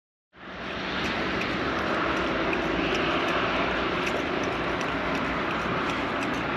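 A steady motor drone with an even hiss, starting abruptly a moment in and holding level throughout.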